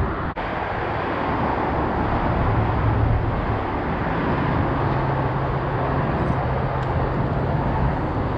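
Steady traffic noise with a low engine hum that rises slightly in pitch about halfway through; the sound cuts out for an instant just after the start.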